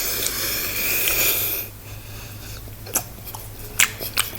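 Close-up eating sounds of a person biting into a hot dog: a breathy, hissing noise for about the first second and a half, then a few sharp mouth clicks while chewing.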